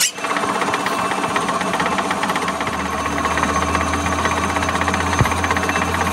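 Metal lathe running with a twist drill boring into the end of a spinning steel truck axle: a loud, steady machining noise with a fast rattle, and a low hum that grows about two and a half seconds in.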